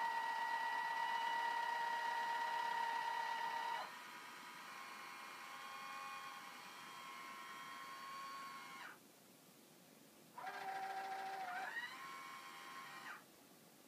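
Meade ETX-125's drive motors and gears whining as the telescope slews under computer control. The whine drops in pitch and level about 4 s in and stops about 9 s in. It starts again about a second and a half later, rises in pitch, and stops near the end.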